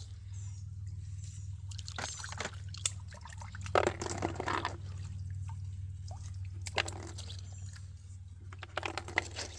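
Water pouring, trickling and splashing in short bursts as a sifter of rocks and clay is rinsed in a stream, loudest about four seconds in.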